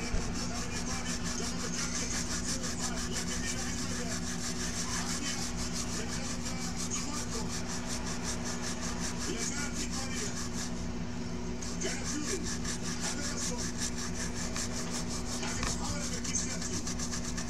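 Quick, even back-and-forth scrubbing on a circuit board, several strokes a second, pausing briefly about two-thirds of the way through. The scrubbing works at liquid-damage corrosion on the board, over a steady electrical hum.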